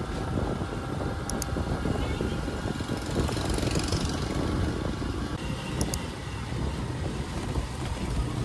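A motor vehicle running, a steady noisy rumble.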